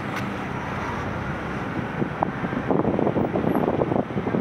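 Car driving slowly, heard from inside the cabin: a steady hum of engine and road noise, with a run of irregular clattering over the last couple of seconds.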